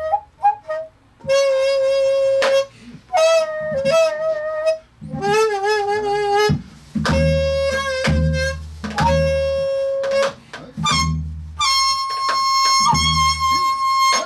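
Daegeum, the large Korean bamboo transverse flute, playing the slow jinyang movement of chum sanjo: long held notes with wavering vibrato and pitch bends in phrases broken by short breaths. Low drum strokes from the accompanying drummer fall every second or two.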